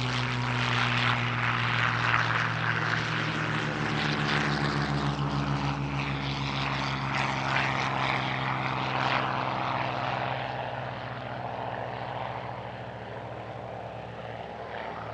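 Supermarine Spitfire Mk Ia's Rolls-Royce Merlin V12 engine at high power as the fighter takes off and pulls away, the engine note sinking slightly in pitch and fading in the last few seconds.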